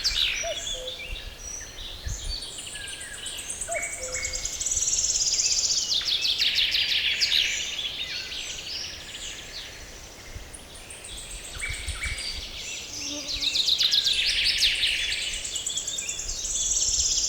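Songbirds singing in a forest: fast trills and short whistled notes from more than one bird, the loudest phrases returning every several seconds.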